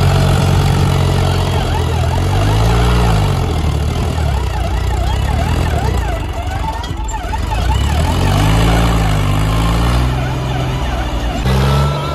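John Deere tractor's diesel engine running hard and revving up and down under load, with a siren-like warbling tone rising and falling quickly over it through most of the middle.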